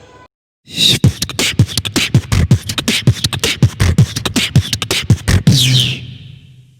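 Human beatboxing: a fast, dense run of mouth-made kick drums, snares and clicks in a tight rhythm, starting just under a second in. It ends in a falling sweep that fades away.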